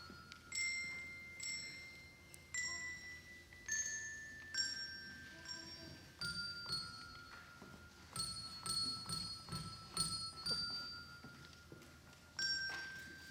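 Handbell choir playing a slow melody: single bell notes struck one after another, each ringing on and fading under the next.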